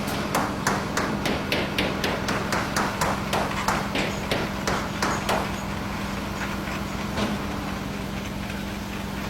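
A hammer striking in a steady rhythm, about three blows a second, stopping about five and a half seconds in, with one more blow a little later. A steady low hum underlies it.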